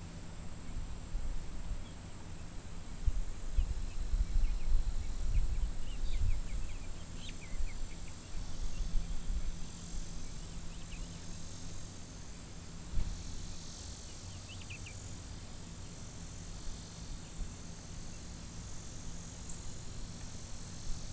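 Outdoor yard ambience: a steady high-pitched drone of insects, with a few brief bird chirps around the middle and some low rumble on the microphone in the first half.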